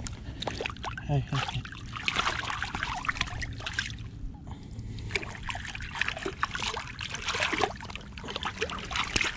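Shallow water splashing and trickling in irregular bursts around hands holding a chain pickerel under the surface as it is revived for release.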